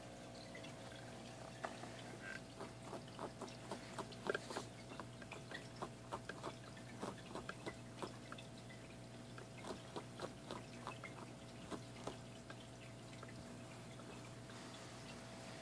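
Ferret under a sofa making soft, irregular clicks, a few a second, which start about a second and a half in and die away a few seconds before the end.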